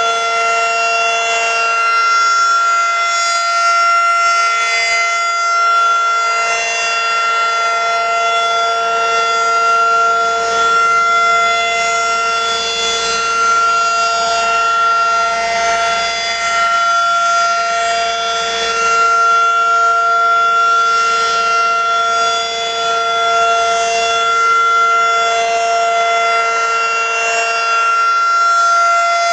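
Federal Signal 2001 outdoor warning siren sounding a steady tone during its monthly test, holding one pitch with only slight swells in loudness.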